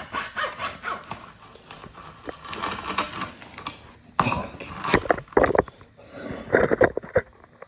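Hand saw cutting wood in quick back-and-forth strokes, which stop after about a second and a half; from about four seconds in, several loud knocks and clunks of wood or tools being handled.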